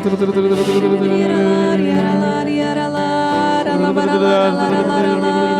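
Sung worship music: voices holding long, steady notes that shift pitch a few times, over soft accompaniment.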